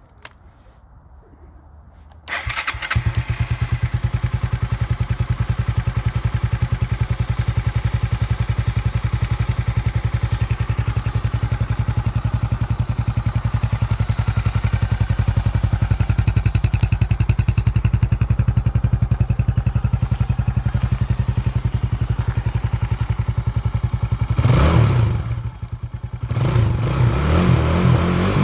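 Honda GB250 Clubman's single-cylinder four-stroke engine, started after standing unused for a long time: it catches about two seconds in and idles steadily with a quick even beat, then is revved up a few times near the end.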